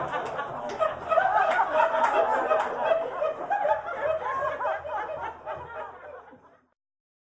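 Audience laughing and chuckling after a punchline, many voices at once, fading out about six and a half seconds in.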